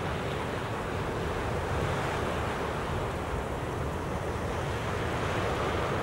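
Lake waves breaking on a sandy beach and against a rock jetty in a steady wash of surf, with wind gusting over the microphone.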